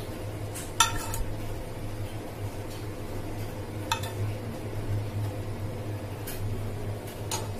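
Metal spoon clinking against a frying pan and a plate while garlic-and-vinegar sauce is scooped out and spread over rice. There are a few short clinks, about a second in, at around four seconds and again near the end.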